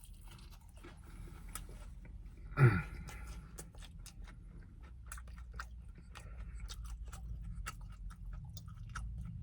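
A person chewing fast food close to the microphone, with many small crunchy clicks. A brief, louder low vocal sound comes about two and a half seconds in.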